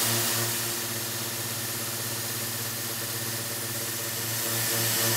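CNC mill spindle at about 7,000 rpm driving a 1/8-inch carbide end mill through a full-width slot in 304 stainless steel, running steadily without problems. It gives a steady whine with a low hum that pulses about three times a second at times, over the hiss of a Fogbuster mist coolant nozzle.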